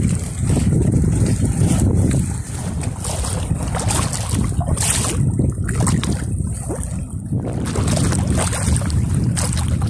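Wind buffeting the microphone over choppy sea water, a steady low rumble, with water sloshing and splashing close by.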